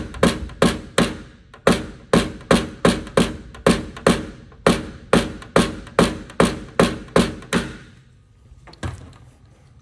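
Mallet striking a knockdown punch held against a 2021 Silverado's aluminum liftgate, tapping down the metal around a dent in paintless dent repair. About twenty sharp, ringing taps, two or three a second, stopping about eight seconds in, with one lighter knock near the end.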